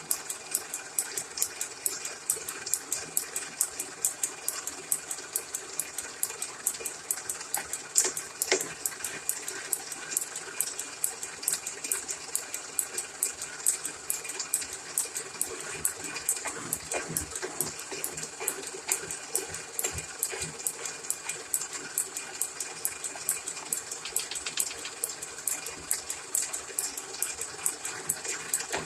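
1929 South Bend 9-inch lathe running while taking a light pass on a part held in a steady rest: a steady whir with a rapid, regular ticking, about three to four ticks a second.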